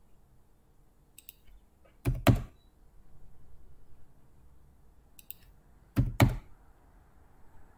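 Computer keyboard keystrokes: two pairs of heavy key presses, about two seconds in and again about six seconds in, each pair led by a few light clicks, as commands are entered at a router prompt.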